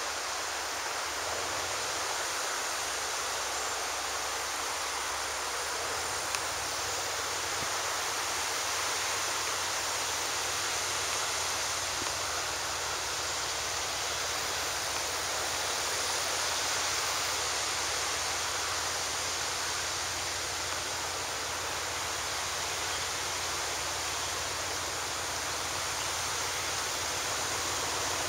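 Steady rushing hiss over a faint low drone from a distant narrow-gauge Lxd2 diesel locomotive setting off with its train. The drone grows a little stronger about six seconds in.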